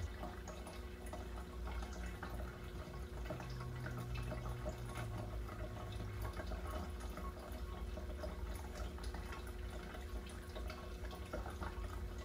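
Steady trickling and dripping water with a low hum underneath.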